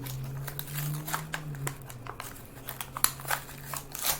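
Plastic blister and cardboard packaging of a Hot Wheels car crinkling and crackling as it is opened by hand, with many scattered sharp clicks, over a low steady hum.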